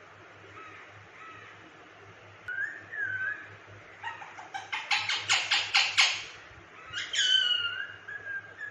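Indian ringneck parrot calling: a few short chirps, then a loud rapid run of harsh repeated notes lasting about two seconds, then a loud call that falls in pitch, followed by softer chirps.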